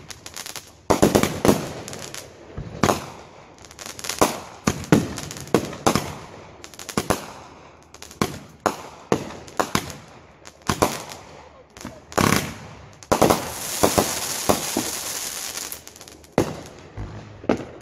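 Fireworks going off in a rapid, irregular string of sharp bangs, each with a short echoing tail. About thirteen seconds in there is a stretch of steady crackling hiss lasting a few seconds.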